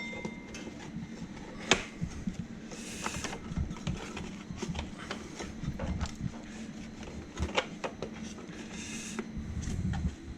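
Hand work in an Audi 2.6 V6's engine bay as the belt is taken out: scattered light clicks and knocks of metal and plastic parts, two short rustling slides, over a steady low hum.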